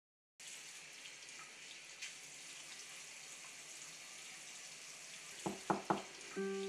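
Bathroom sink tap running steadily, starting suddenly about half a second in, with three short sharp sounds close together near the end. Music with held notes comes in just before the end.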